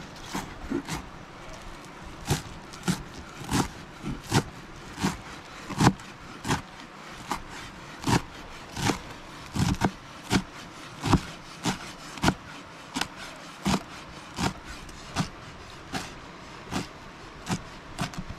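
Knife chopping fresh cilantro on a cutting board: steady, even chops, about three every two seconds.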